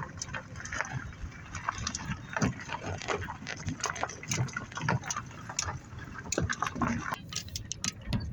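Car driving slowly, heard from inside the cabin: a low rumble with many irregular crackles, knocks and rattles.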